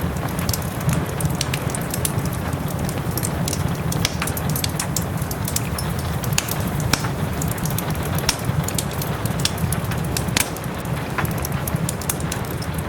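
Wood fire crackling, with frequent irregular sharp pops, over a steady hiss of soft rain and a low rumble.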